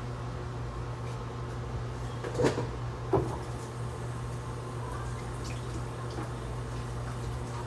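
Two short knocks under a second apart, typical of kitchen items being handled, over a steady low hum, with a few faint clicks later on.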